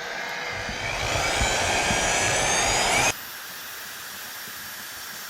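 Power tool running with a rising whine, getting louder, as it cuts hardened grade 8 bolts to length. It stops abruptly about three seconds in, leaving a steady hiss.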